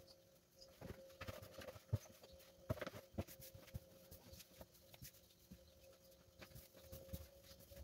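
Hands kneading crumbly flour-and-margarine pastry dough in a plastic bowl and pressing it onto a stainless steel counter: faint, irregular soft thuds and pats, the loudest about two and three seconds in, over a faint steady hum.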